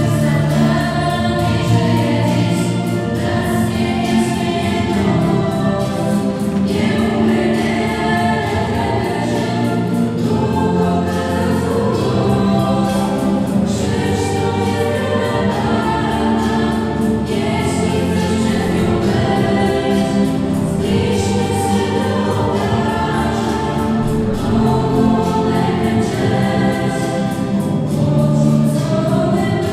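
A choir singing sacred music in slow, held chords.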